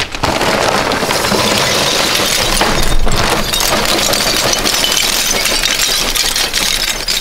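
Lump charcoal poured from a paper bag into a grill's metal firebox, the pieces clattering and clinking onto the coals below in one continuous rush.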